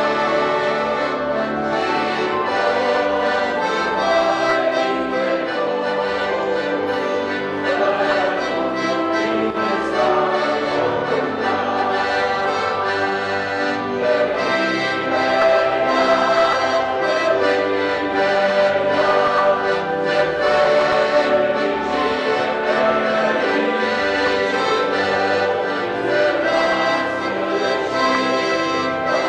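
Piano accordion accompanying two men's voices singing a hymn in Romanian.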